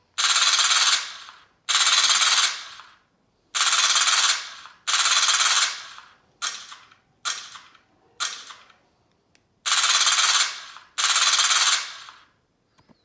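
Machine-gun fire sound effect played by a scale military vehicle model's electronic sound unit, set off by remote control: nine bursts, each under a second, the three in the middle shorter.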